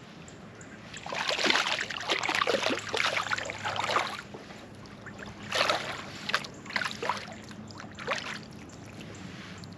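Water splashing at the side of a kayak: a stretch of splashing for about three seconds, then four short splashes.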